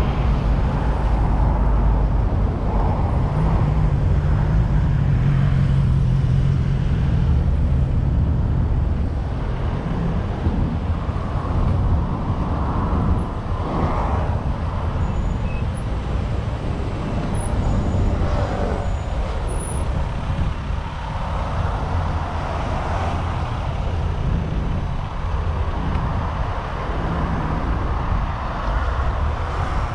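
City street traffic: motor vehicles running close by, with a low engine hum that is strongest in the first third and then eases into a steady traffic rumble.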